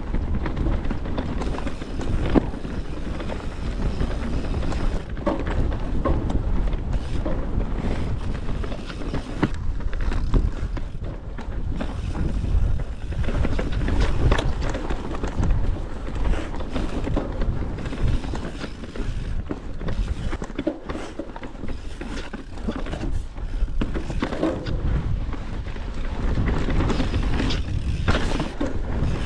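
Mountain bike ridden along rough dirt singletrack: a continuous rumble of tyres and suspension with frequent knocks and rattles from the bike over bumps.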